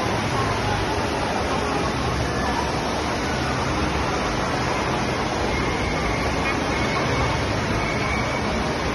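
Steady din of a busy indoor waterpark: rushing water from the pools and slides mixed with the chatter of a crowd.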